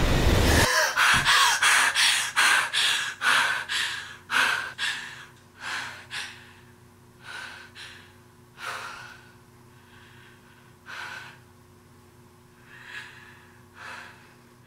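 A young woman's frightened, rapid breathing, panting about twice a second at first, then slowing and fading to softer breaths a couple of seconds apart as she calms. A loud low rumble cuts off suddenly just before the breathing begins.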